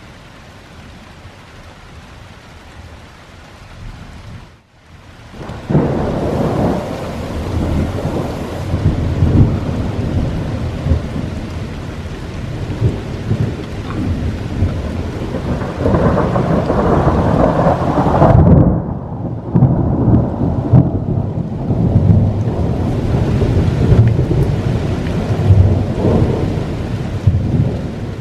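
A steady hiss, then about six seconds in a thunderclap breaks into a long, loud rolling rumble of thunder that swells and eases several times and keeps going to the end.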